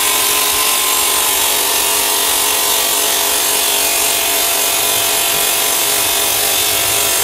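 Donatoni JET 525 CNC bridge saw's diamond blade cutting through a stone slab with water cooling. It makes a steady, loud, hissing grind with a faint whine running through it.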